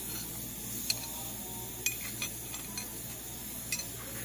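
A few light metallic clinks, spaced irregularly, over a steady low shop hum, as metal fixture parts and clamps on a milling machine table are handled.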